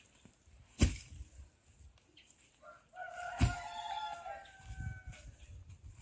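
A rooster crowing once, one long call of about two seconds starting near the middle. A sharp knock comes about a second in, and another during the crow.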